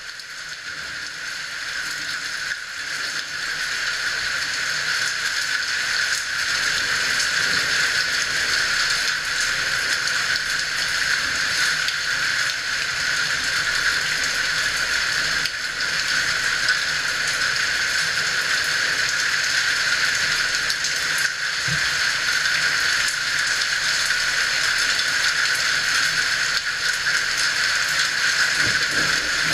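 Heavy rain falling in a steady, even hiss that builds over the first few seconds and then holds.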